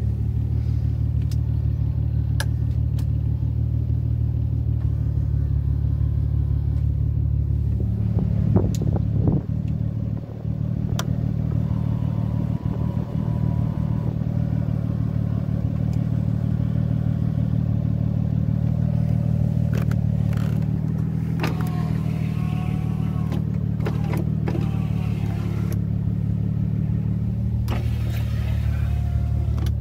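1992 Nissan 300ZX Twin-Turbo's VG30DETT V6 engine running, heard from inside the cabin as a steady low drone. A brief burst of louder noise comes about eight to nine seconds in.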